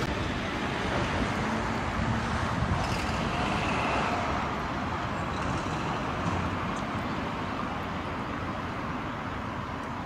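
Steady road traffic noise, an even rumble and hiss without distinct events, getting slightly quieter toward the end.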